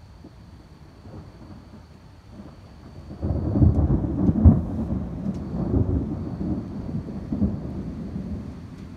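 Thunder: quiet at first, then a deep rumble breaks in about three seconds in, with its loudest clap about a second later, and rolls on for several seconds while slowly fading.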